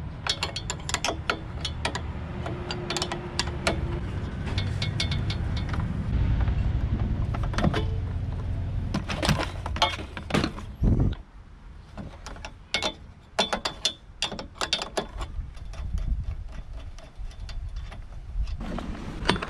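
Socket ratchet clicking in runs as the mounting nuts of auxiliary driving lights on a steel bull bar are undone, with clinks of metal parts being handled.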